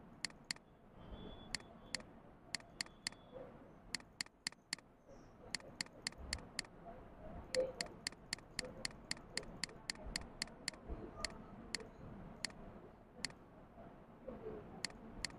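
Computer mouse clicking: dozens of sharp, short clicks at irregular spacing, some in quick pairs, with faint room tone between them.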